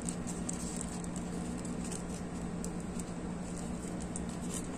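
Thin CPE plastic pouch crinkling and rustling in the fingers as it is handled, many small crackles, over a steady low hum.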